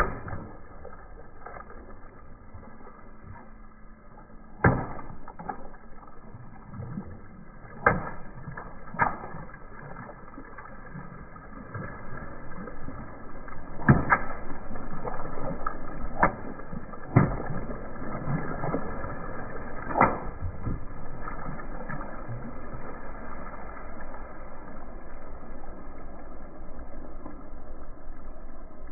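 Water balloons bursting one by one under a slowly rolling car tyre: about seven sharp pops spread out, with a growing wash of splashing, spilling water from about halfway through.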